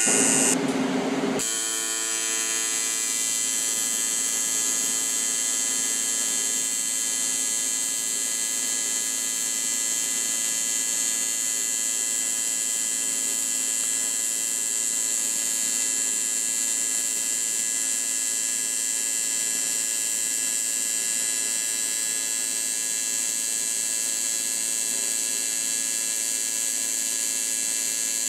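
AC TIG welding arc on aluminum, set to 120 Hz and about 80 amps on a foot pedal, buzzing steadily with a high hiss as a bead is run. It is louder and rougher for the first second and a half as the arc is struck and settles.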